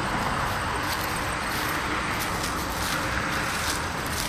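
Steady rushing background noise, like distant traffic, with a few faint soft steps on grass.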